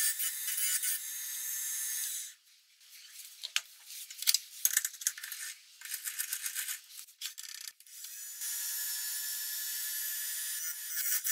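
Wood lathe running with a steady hiss and faint hum, stopping about two seconds in; then several seconds of scattered clicks and metal knocks as the pine workpiece is handled at the metal chuck, before the lathe runs again and clicks from the cutting tool begin near the end.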